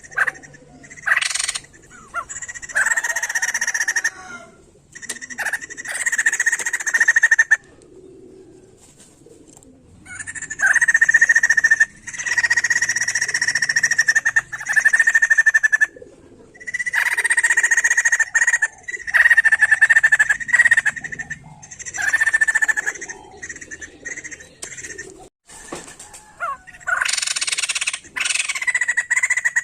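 White-crested laughingthrush (poksay jambul) calling loudly in chattering, cackling bursts a few seconds long, broken by short pauses and a quieter stretch about a third of the way in.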